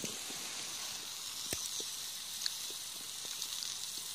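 Baklava sizzling in a small steel pan set on wood-fire embers, its syrup bubbling with a steady hiss and scattered small pops.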